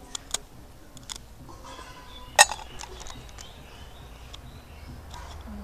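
Small snails' shells cracking as their tips are cut off against a curved knife blade: a few sharp clicks, with one loud crack a little before halfway.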